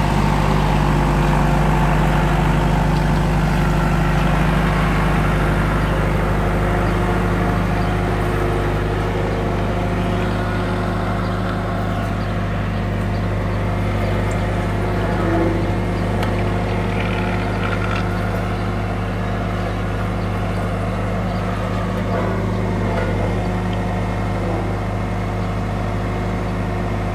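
CASE tandem road roller's diesel engine running steadily with a low hum as the roller drives over fresh asphalt.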